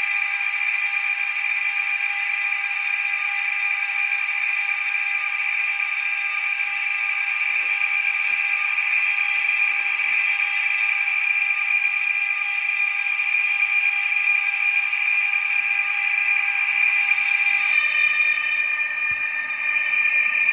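Sound decoder of a Trix model locomotive playing a steady, high-pitched, tinny running tone through its small speaker, with no low end. About 18 s in, the blend of tones shifts, and one tone drops out as new ones come in.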